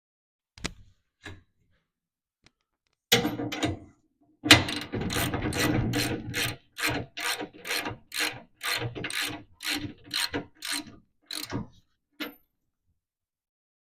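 Hand ratchet wrench being worked back and forth to run down a nut or bolt, a fast run of ratchet clicks at about three strokes a second that slows near the end, after a few single clicks and a short burst.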